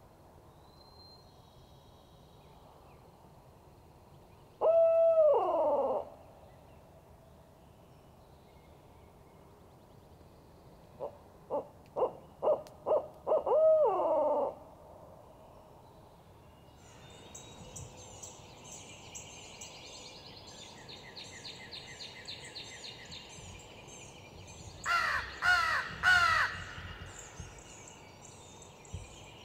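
Owl hooting in the barred-owl pattern: one long hoot, then a quick run of short hoots that ends in a long drawn-out hoot falling away. Later, birds start singing, and a crow caws three times near the end.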